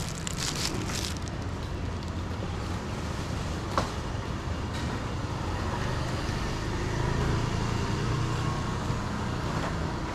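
Steady street traffic rumble, with an engine hum that grows a little stronger in the second half and a single sharp click about four seconds in.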